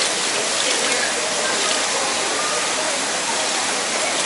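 Steady rush of running water, with faint voices in the background.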